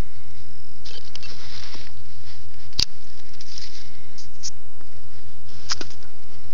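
Rustling and crackling of dry leaf litter close to the microphone as the ground around a plant is disturbed, with one sharp click about three seconds in and a fainter one near the end.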